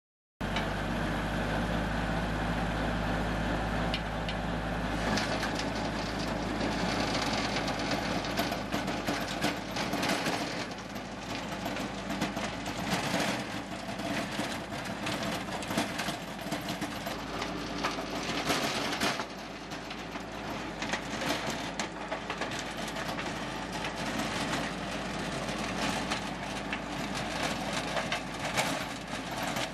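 Compact tractor engine running under load as it drives a King Kutter 5-foot PTO rotary tiller through soil, the tines churning dirt. The sound starts as a steady engine note and turns rougher and more uneven about five seconds in. This is the test run of the tiller's gearbox after its seals and lower bearing were replaced.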